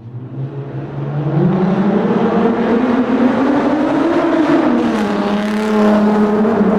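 Car engine driving through a tunnel, getting louder over the first second and a half as it approaches, its pitch climbing, then dropping about four seconds in and holding steady.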